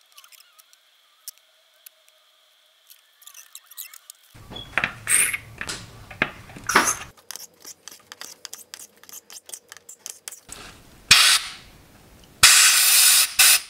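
Compressed air blown into the cylinder-head bolt holes of an engine block: a short, loud hissing blast near the end, then a longer one of over a second. Before that come squirts of spray cleaner into the holes and the scrubbing and clicking of a small brush.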